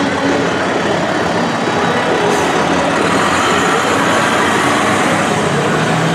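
Fire truck pulling out: loud, steady engine noise with a low hum running through it.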